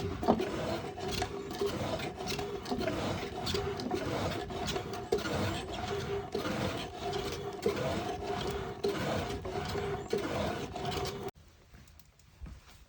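A steel file rasping back and forth across the forged steel blank of a hook knife, with repeated strokes about twice a second. The workpiece rings with a steady squealing tone under the file. The filing cuts off suddenly about 11 seconds in.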